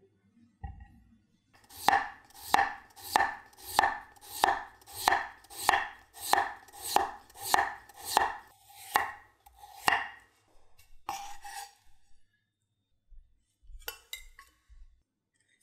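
A chef's knife slicing a peeled potato into thin rounds on a wooden cutting board: about thirteen even strokes, roughly one and a half a second, each ending in a sharp knock of the blade on the board. A short scrape and a few light clinks follow near the end.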